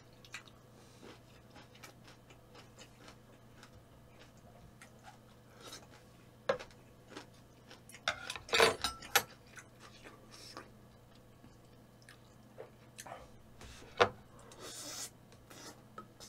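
A person eating: chewing and mouth sounds with scattered short clicks and knocks. A louder cluster comes about eight to nine seconds in, and one sharp click near fourteen seconds.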